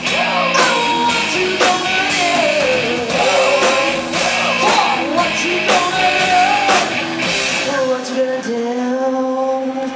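Live rock band: a woman singing over electric guitars and a drum kit. About three-quarters of the way through, the drums and low end drop out, leaving a held note.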